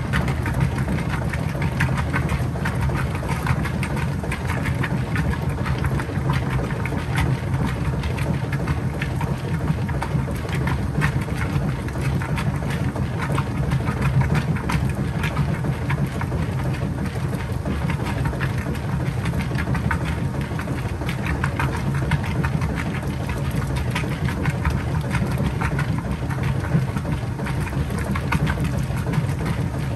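Kenmore 80 Series top-load washer agitating in its rinse water: the motor and drive hum steadily while the agitator churns and sloshes the load.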